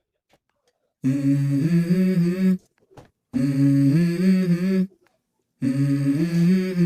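Background music: after about a second of silence, three short sung or hummed vocal phrases with held notes, separated by brief pauses.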